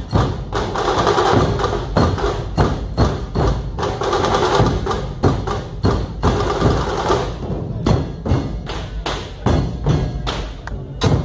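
Dhol-tasha ensemble playing: big barrel dhol drums beating a steady, loud rhythm. A dense, fast roll rides over the beat and stops about seven seconds in, leaving spaced drum strikes.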